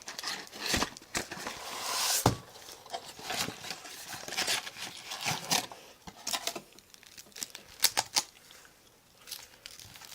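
Trading card packaging crinkling and tearing as it is handled and opened, with scattered sharp clicks and taps. A louder rustle and tear comes about two seconds in.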